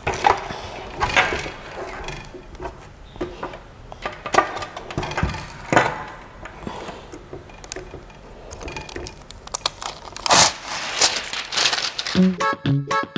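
Handling noises from unpacking and fitting a 3D printer's metal frame: irregular knocks and clicks of parts being moved and set down, with rustling of packaging, loudest about ten seconds in. Background music starts just before the end.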